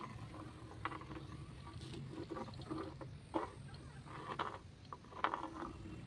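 Pencil scratching across rough-sawn wooden boards as it is swung round on a string tied to a nail, used as a compass to draw a circle. The sound is faint and comes as short, irregular scrapes and clicks.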